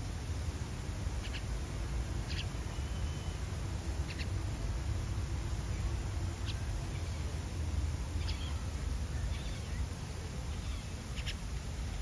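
Common myna nestlings in a tree-hole nest giving short, high squeaky calls, one every second or two, over a steady low rumble.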